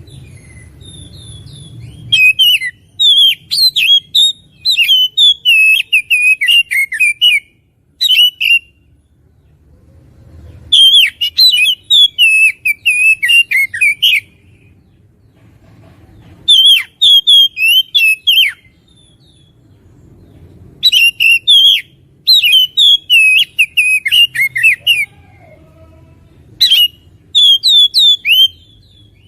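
Oriental magpie-robin in full song: loud bouts of quick, varied whistled and chattering notes, six bouts of one to five seconds each with short pauses between.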